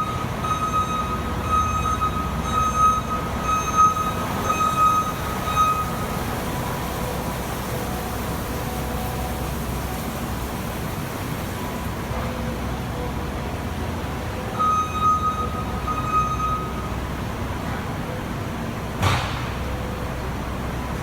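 New Holland L220 skid steer's diesel engine running steadily while it works, with a backup alarm beeping repeatedly for the first six seconds and again for a couple of seconds later on. A single sharp clank about nineteen seconds in.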